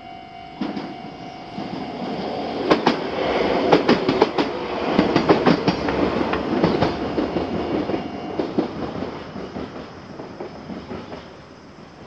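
Kintetsu Yoshino Line electric train passing over a level crossing, its wheels clacking rhythmically over the rail joints, loudest in the middle and fading near the end. The crossing's fast-ringing electronic warning bell sounds along with it and stops about eight and a half seconds in.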